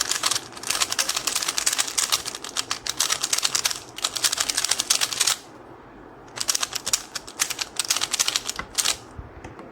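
QiYi Sail 3x3 plastic speed cube being turned rapidly by hand, a dense run of fast clicking layer turns. The turning stops for about a second past the middle, then starts again.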